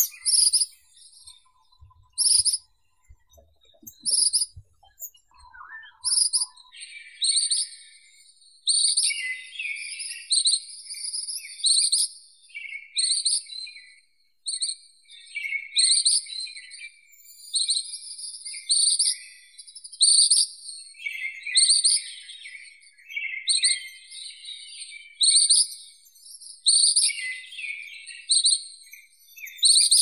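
Ashy minivet calling: short, high trilling notes, about one every two seconds at first, then coming in quick succession from about seven seconds in.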